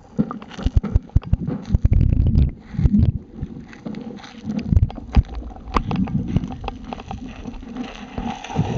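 Handling noise on the camera's microphone: low rumbling with irregular knocks and scrapes as the camera is jostled and brushed against fur and grass.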